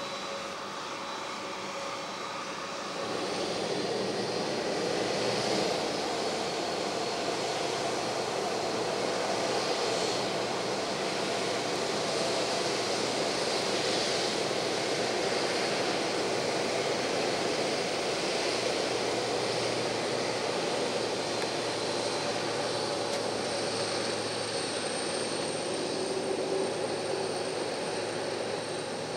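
Boeing 767-300 freighter's GE CF6 turbofan engines running as the jet taxis. The engine noise rises about three seconds in as thrust is added to move off, then holds as a steady jet rumble with a high fan whine on top.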